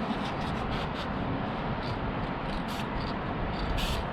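Short, quick hissing bursts from an aerosol spray can of chassis black paint, scattered at first and coming faster and louder near the end, over a steady background rumble.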